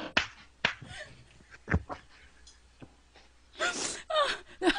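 A woman laughing hard, at first in short breathless gasps with pauses between, breaking into voiced laughter about three and a half seconds in.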